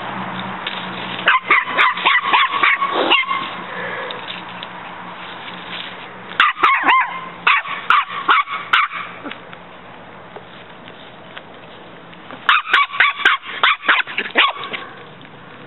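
West Highland White Terrier puppy yapping in three quick bursts of sharp barks, each burst about two seconds long, with pauses between.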